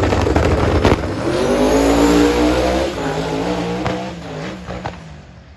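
Drag-racing car engine at full throttle, its pitch climbing as it accelerates away, then fading out near the end.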